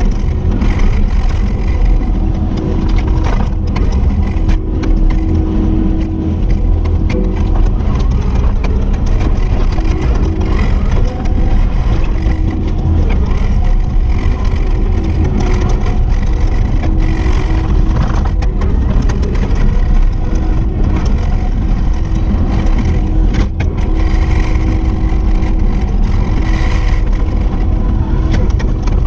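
Kubota SVL75-2 compact track loader's diesel engine running steadily under working load, its note rising and falling slightly, with a few sharp knocks.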